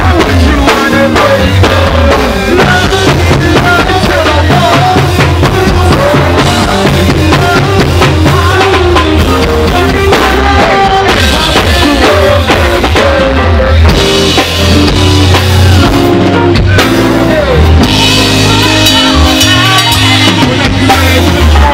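Live go-go band playing loud: drum kit and congas keep a steady beat with heavy low end, while MCs rap and chant over it through microphones.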